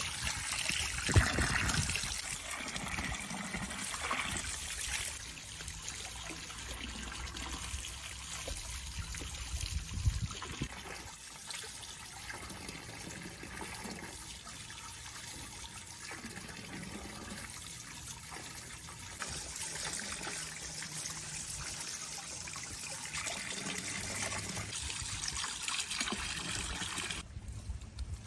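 Water trickling and splashing steadily, with a few knocks about a second in and again about ten seconds in. It cuts off abruptly near the end.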